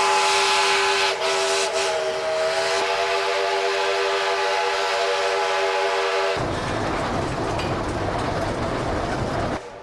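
Steam locomotive whistle blowing a long, steady multi-note chord for about six seconds, then cutting abruptly to a loud rush of escaping steam.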